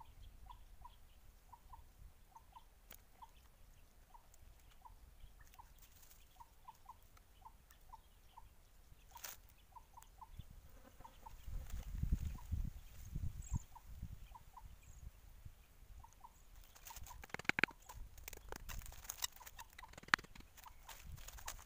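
A chicken clucking softly: short repeated notes, two or three a second in irregular runs, that die away about two-thirds of the way through. Near the end, rustling in dry leaves and a few sharp knocks take over.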